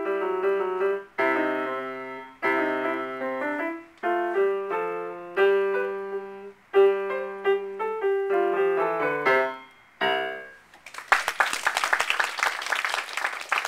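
Piano music played in short phrases, ending on a last chord about ten seconds in, followed by applause.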